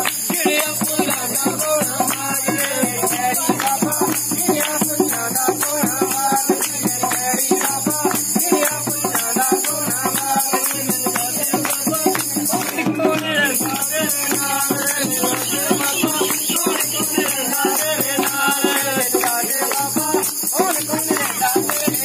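A group singing a Punjabi devotional song with a quick, steady beat of hand clapping and jingling percussion.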